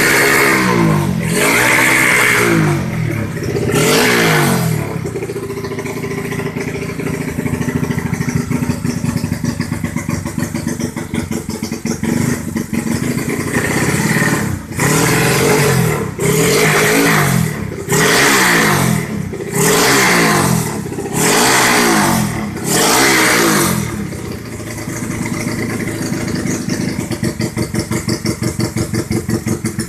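Honda Supra underbone motorcycle engine tuned to 130 cc, idling and revved in short throttle blips: three near the start, then a run of six about every one and a half seconds midway, with steady idle in between. The exhaust note is fierce.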